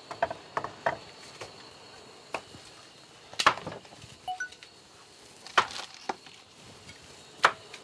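Light kitchen taps and clinks, then three sharper knocks about two seconds apart as a refrigerator is opened and the fish is put inside. Crickets chirr steadily in the background.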